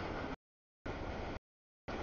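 A mixed freight train's cars rolling past on the rails, a steady noise of wheels on track. The audio keeps cutting out, so the sound comes in three short chunks with dead silence in the gaps, which are stream dropouts.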